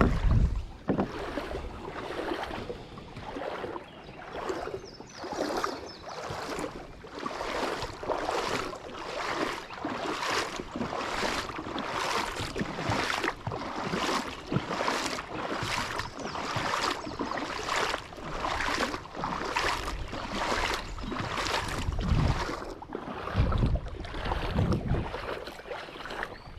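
Kayak paddle strokes: the blades dip and splash into the river in a steady rhythm, with some wind rumble on the microphone.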